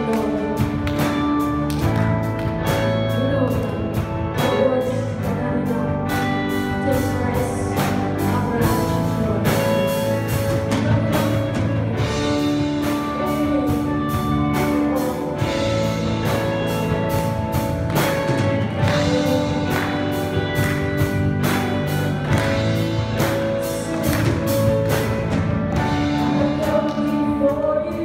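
Live church worship band playing: drum kit keeping a steady beat under sustained keyboard and guitar chords, with a woman singing over it at times.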